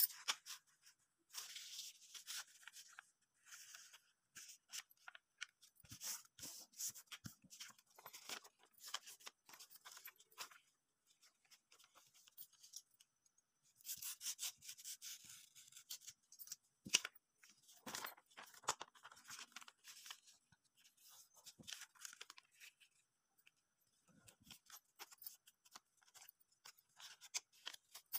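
A sheet of paper being handled, folded and creased by hand, in short irregular rustles and crinkles, with a denser stretch about halfway through as a utility knife slices the paper.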